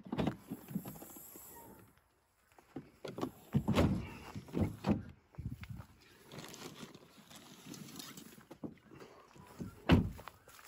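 Footsteps and handling noises around a car, with a car door opened and then shut with a sharp thump near the end.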